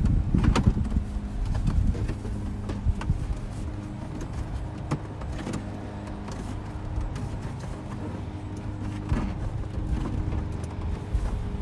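Scattered clicks and knocks of plastic interior trim being handled and pushed into place, over a steady low hum.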